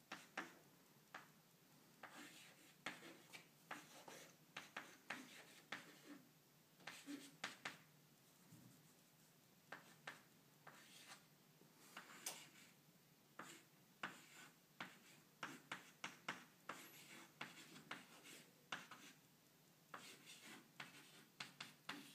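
Chalk writing on a blackboard: short taps and scratching strokes in irregular clusters, with brief pauses between groups of strokes.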